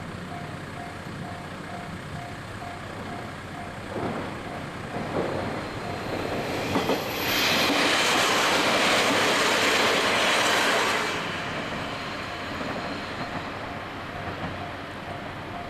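Japanese railway level-crossing warning bell ringing in a steady repeated ding. A train passes over the crossing from about four seconds in: a few wheel clacks, then a loud rush for about four seconds that drowns the bell. The bell is heard again as the train moves away.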